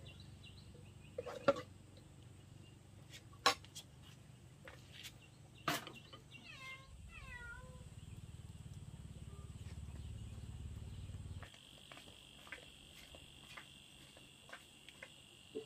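Brief animal cries, a short run of falling pitched calls about two-fifths of the way in, among a few sharp clicks or knocks. A low hum stops suddenly about two-thirds through, and a steady high-pitched drone begins at the same moment.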